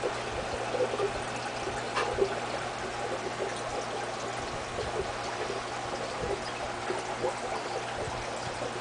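Aquarium water trickling steadily, with small splashes scattered through it and a low steady hum underneath.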